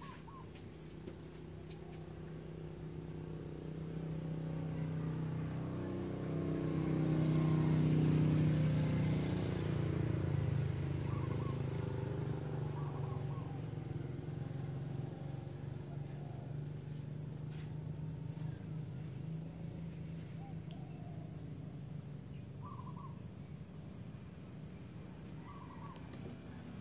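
Outdoor ambience: a steady pulsing insect trill, a few short bird chirps, and a low vehicle engine rumble that swells to its loudest about eight seconds in and then slowly fades as it passes.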